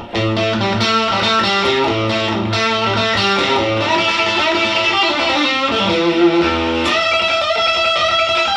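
Electric guitar, a worn blonde Telecaster-style solid-body, playing a short blues phrase of quick picked notes, moving to held notes with vibrato near the end.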